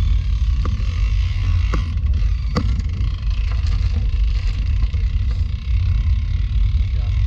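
Wind buffeting the microphone of a camera on a moving road bike, heard as a heavy, uneven rumble over a steady hiss of tyres on the road. A few sharp knocks from the bike come through in the first three seconds.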